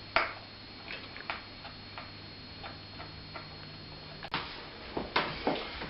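A small Phillips screwdriver working on the screen mounting screws of a Samsung NP300V5A laptop: a string of light irregular clicks and ticks as the screw is turned out and the tool handled, with sharper clicks about four and five seconds in.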